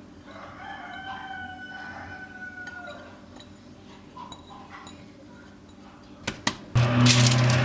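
A rooster crows once, a long, slightly falling call. Near the end there are two sharp clicks, and then a louder motor starts running with a steady low hum.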